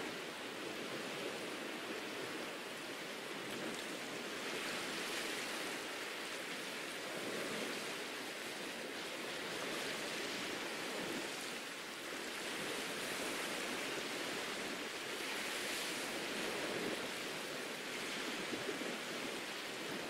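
Soft waves washing onto a sandy beach: a steady rush of surf that swells and eases every few seconds as each wave runs up the sand.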